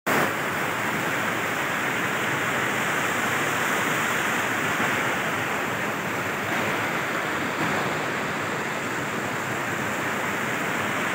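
Mountain stream rushing and cascading over rocks: a steady, unbroken roar of white water.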